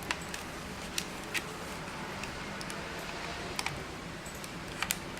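A handful of small, sharp plastic clicks and taps over a steady hiss: a camera microphone being handled and fitted onto a camcorder's hot shoe.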